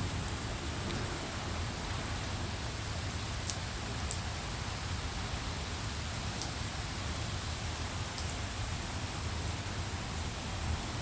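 Steady rain falling during a storm, an even hiss, with a few sharp ticks scattered through it.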